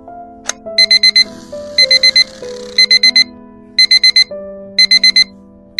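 Digital alarm clock beeping in sets of four quick high beeps, a set about every second, over background music. A single click comes just before the first set.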